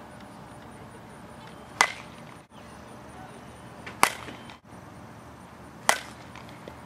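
Softball bat striking softballs three times, about two seconds apart: a sharp crack with a brief ring at each contact.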